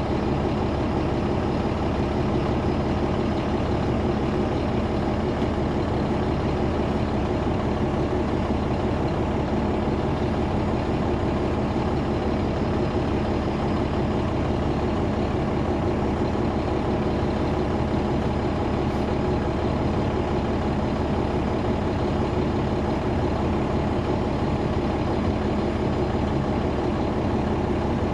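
Caterpillar C13 ACERT diesel engine of a 2009 NABI 416.15 transit bus running steadily at an even speed, with its engine cooling fans on. There is no revving and no gear change.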